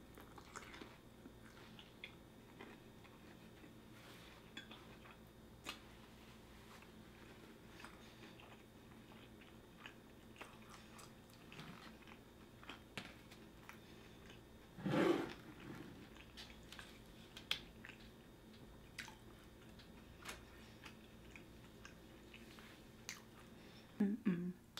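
Close-miked mouth sounds of someone eating sushi: soft wet chewing with scattered small clicks, and a louder brief mouth sound about fifteen seconds in.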